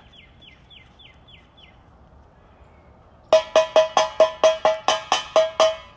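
A quick, even run of about a dozen sharp ringing knocks, about five a second, all on the same pitch, starting about three seconds in. Before them, a few faint high chirps fall in pitch.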